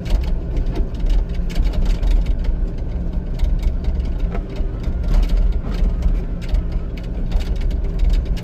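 Excavator's diesel engine running with a steady low drone, heard from inside the cab, with frequent clanks and rattles from the machine as it works.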